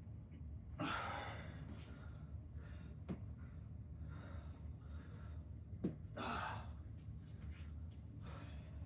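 A man breathing hard, with heavy breathy exhales about a second in and again about six seconds in, and a couple of short sharp clicks in between, over a steady low hum.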